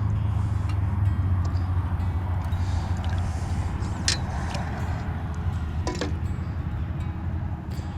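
A steady low rumble on the microphone, with two sharp metallic clinks about four and six seconds in from the lure's hooks and metal leader while a pike is being unhooked in the net.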